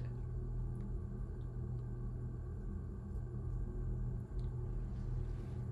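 Room tone between narration: a steady low hum with a faint hiss and a few faint ticks.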